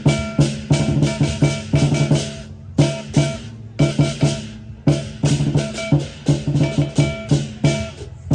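Music with plucked guitar over bass and drums, at a steady rhythmic beat with a few brief breaks.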